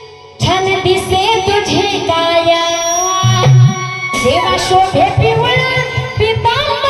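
Marathi gavlan devotional folk song: singing with melodic instrumental accompaniment and hand-drum beats, coming back in after a short break about half a second in.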